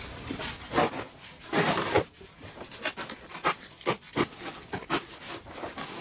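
Cardboard shipping box being opened by hand: cardboard flaps and packing tape scraping, rustling and clicking in irregular strokes, with a couple of longer scrapes a little under two seconds in.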